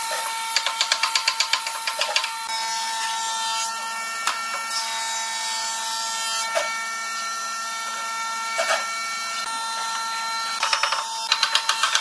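Wooden mallet tapping wooden frame parts together in a quick run of light knocks, about seven a second, for a couple of seconds near the start and again near the end. There are a few single knocks in between.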